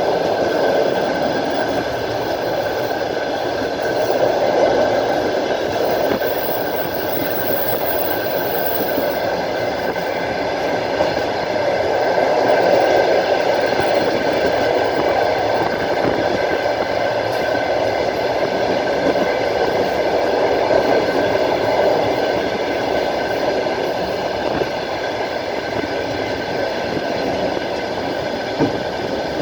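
Moving train heard from a carriage window: the steady rumble and clatter of wheels on rails, with a constant hum of several steady tones over it.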